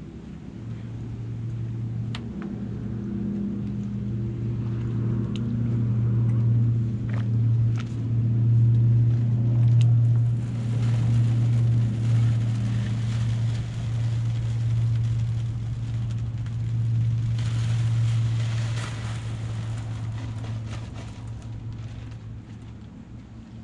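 A steady engine drone swells and then fades over about twenty seconds as it passes. Twice, for a few seconds each, dry concrete mix hisses and rustles as it pours from a bag into a piling's snap jacket.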